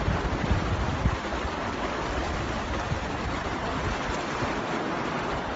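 Floodwater rushing fast down a street, a steady churning roar of fast-moving water.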